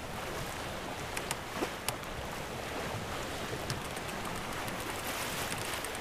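Sailboat under way: a steady rush of water along the hull and wind, with a few short clicks about a second to two seconds in.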